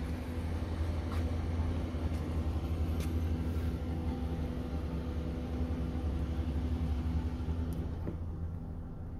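A car engine idling steadily with a low rumble, easing off slightly near the end.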